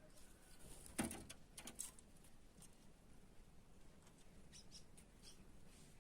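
Faint, short bird chirps, with a sharp click about a second in and a few lighter clicks just after.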